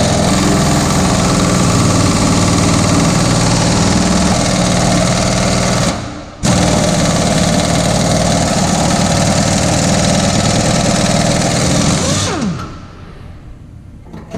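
Pneumatic impact wrench hammering on a rusted truck-frame bolt. It runs steadily, cuts out for a moment about six seconds in, runs again, then is released near the end and winds down with a falling whine.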